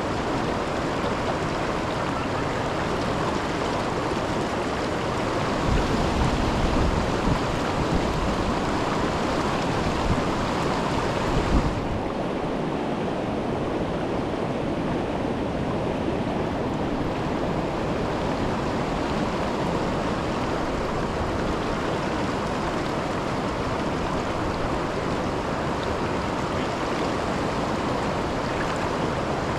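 Steady rush of Milwaukee River water at the Kletzsch waterfall. Low rumbles hit the microphone between about six and twelve seconds in, and then the hiss turns a little duller.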